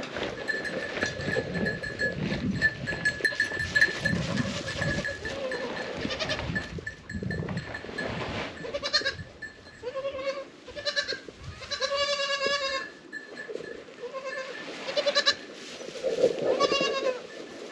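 Goats bleating about six times in the second half, one call long and wavering, with a bell ringing steadily through the first half.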